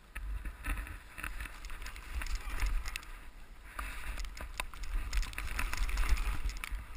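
Ski bike's short skis sliding through deep powder snow, hissing with scattered knocks and scrapes, over a low wind rumble on the helmet-mounted camera's microphone.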